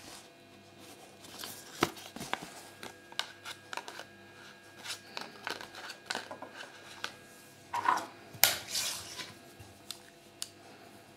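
Gloved hands handling a small plastic Kinder Surprise Minion toy and its paper leaflet: scattered light clicks and taps of plastic parts, with a short, louder rustle about eight seconds in.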